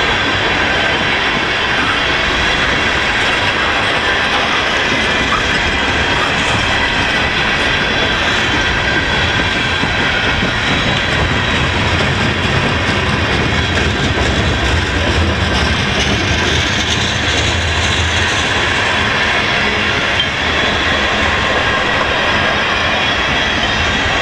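Freight train of tank cars rolling past: steady steel-wheel and rail noise with clickety-clack from the wheels crossing rail joints, and a thin high squeal from the running gear. A deeper rumble swells for several seconds in the middle.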